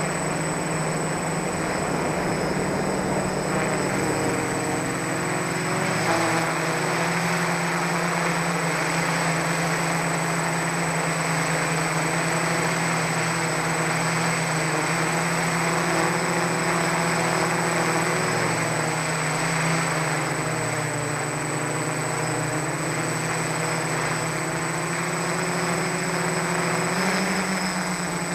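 Quadcopter's four SunnySky 980KV brushless motors spinning 10x4.5 propellers, heard from the onboard camera as a steady drone in flight. Its pitch shifts slightly now and then as the motors adjust, with a thin high whine above it.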